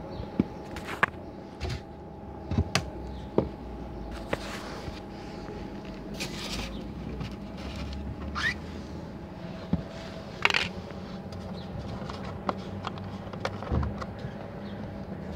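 Scattered knocks, clicks and rustles of close handling over a steady low hum, with two short rising squeaks near the middle.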